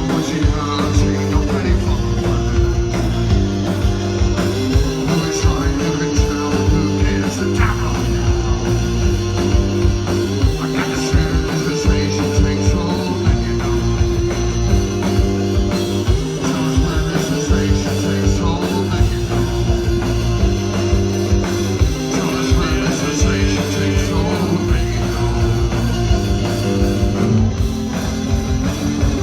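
A live post-punk rock band playing loud, with a driving drum beat, a prominent bass line and guitar, and a singer's voice at times.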